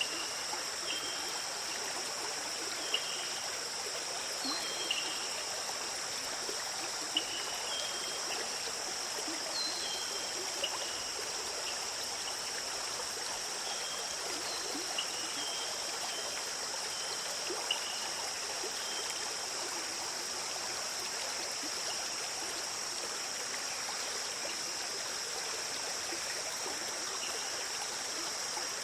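Forest stream flowing and trickling steadily, with a steady high insect drone over it and short bird chirps now and then through the first two-thirds.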